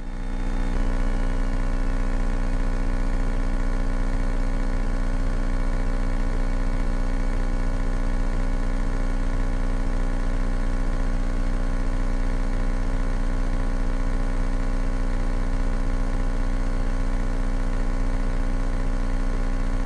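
Cessna 172K's four-cylinder Lycoming engine and propeller droning steadily in cruise, heard through the cockpit headset intercom, with an even, unchanging pitch.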